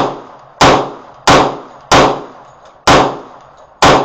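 Magnum Research 1911 G10 pistol in 10mm firing a string of about six shots, roughly one every half second to second, each sharp crack dying away in a short echo.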